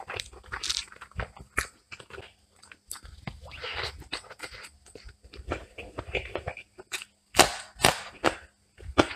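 A person chewing a mouthful of rice and chicken eaten by hand, with many short wet mouth clicks and two louder sharp ones about seven and eight seconds in.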